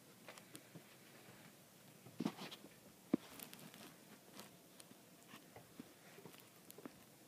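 Faint, scattered crunches and clicks of a small dog's paws stepping through fresh snow, with a brief cluster a little over two seconds in and one sharper click about three seconds in.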